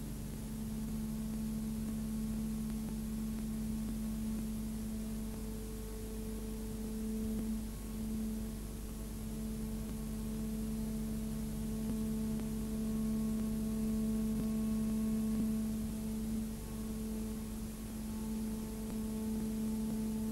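A steady low drone from the film's soundtrack: one held note with fainter higher tones that come and go, over a constant hiss and low hum.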